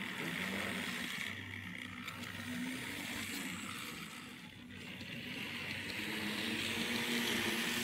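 N scale model train running on its track: a steady electric motor whir and hum with rail noise, dipping briefly about halfway.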